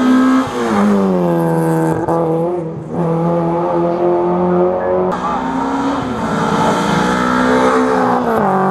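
Rally car engine driven hard on a hill climb. The revs drop sharply and build again several times, about half a second in, around the middle, and near the end, as the driver shifts and lifts for corners.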